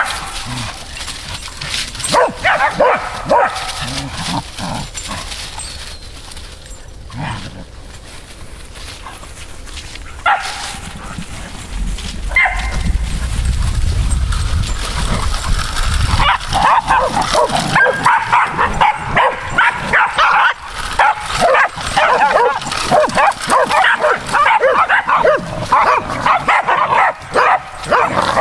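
Dogs barking and yapping in quick short calls, sparse at first and then almost non-stop through the second half.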